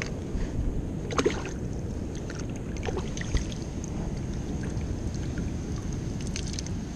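Steady rumble of wind on the microphone with surf behind, and a few small splashes and knocks of water in a shallow rock tide pool as a fish is put into it by hand. The splashes come about a second in, around three seconds in and near the end.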